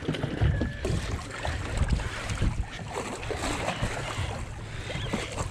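Wind buffeting the microphone and water slapping against the hull of a drifting boat, with scattered light knocks and clicks.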